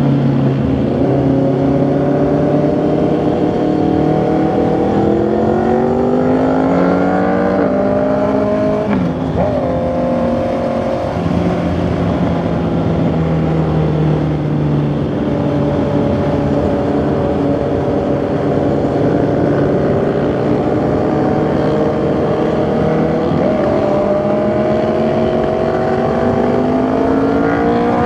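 Honda CB650R's inline-four engine and exhaust under way, pulling up through the revs with a shift about 9 seconds in, cruising steadily, easing off, then picking up revs again near the end.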